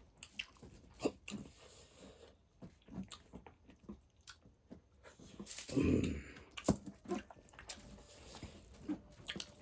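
Close-miked chewing and biting of braised pork feet: wet mouth smacks and sharp clicks scattered through, with one louder low sound lasting about half a second around six seconds in.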